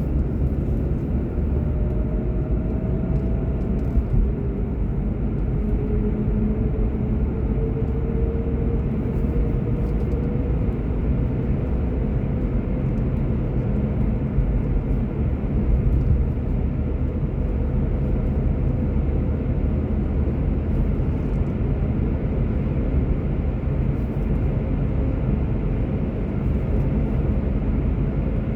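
Car driving along, a steady low rumble of road and engine noise, with a faint whine rising slowly in pitch during the first ten seconds or so.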